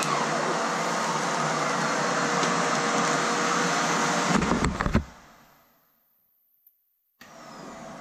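Aerus Lux Legacy canister vacuum cleaner running steadily with its power nozzle. About four and a half seconds in there are a few knocks, then the motor is switched off and winds down to silence over about a second.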